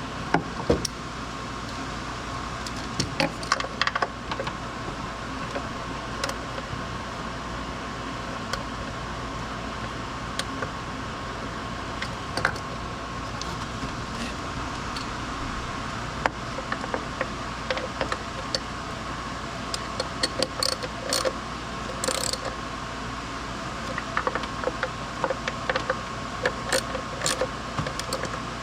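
Scattered light clicks and rattles over a steady mechanical hum with a faint steady tone.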